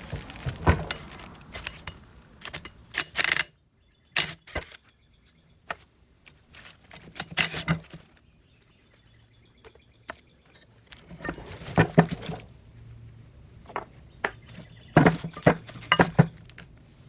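Irregular metallic clinks, clatters and rustling from brake parts being handled, in several short clusters with quiet gaps between them.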